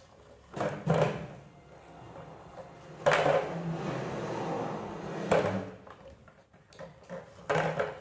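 An empty plastic bottle knocked and shoved across a stone floor by a parakeet's beak: a few hollow knocks, the loudest about three seconds in, followed by a couple of seconds of scraping as the bottle slides.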